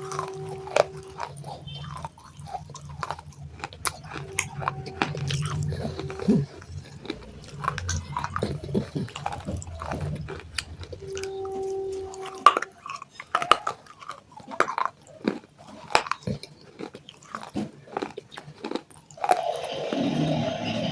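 Someone chewing and crunching broken pieces of baked clay pot, with sharp, crisp cracks coming at an uneven pace. Near the end there is a denser, rougher stretch of grinding noise.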